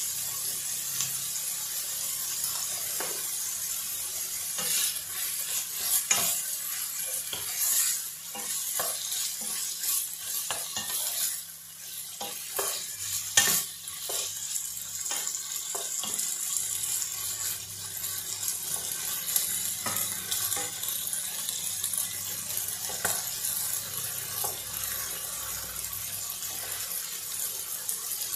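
Chicken strips and sliced onion sizzling in a nonstick frying pan, a steady hiss. Scattered knocks and scrapes of a wooden spatula stirring them come mostly in the first half.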